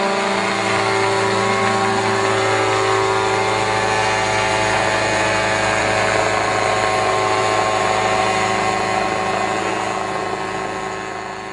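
Small unmanned crop-spraying helicopter in flight, its engine and rotor running with a steady, buzzing note. The sound fades away near the end.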